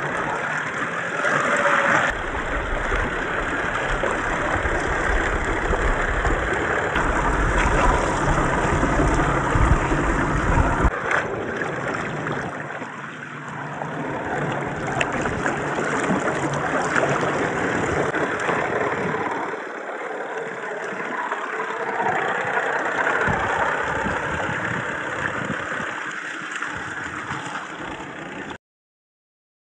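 Water splashing and churning around the tyres of an Axial SCX10 III RC crawler wading through a shallow stream, over the whir of its electric motor and drivetrain. The sound swells and eases, then cuts off abruptly near the end.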